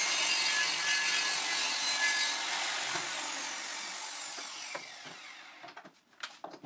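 Corded circular saw cutting through a plywood board, a steady loud rip. About two and a half seconds in the saw is let off and the blade winds down with a falling whine over a few seconds, then a couple of short knocks as it is set aside.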